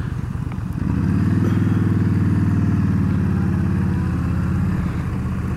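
Yamaha V Star 1300's V-twin engine on the move. The throttle opens about a second in, and the engine note grows louder and holds steady, then eases off slightly near the end.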